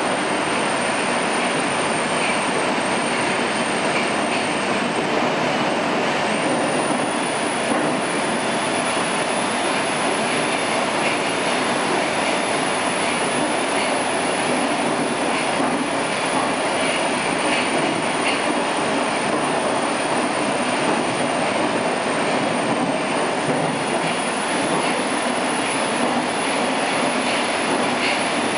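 Inside the carriage of an 81-760/761 'Oka' metro train running at speed between stations: a steady, loud rush of wheel and tunnel noise with a thin, high whine over it.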